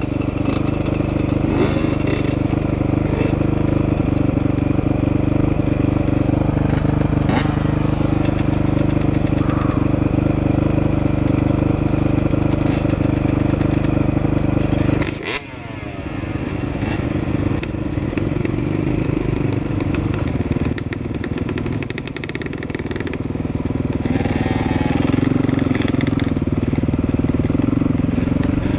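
Dirt bike engines idling, with the Honda's engine closest. About halfway through it dips and sweeps in pitch as it pulls away, then runs on at riding pace with the throttle rising and falling.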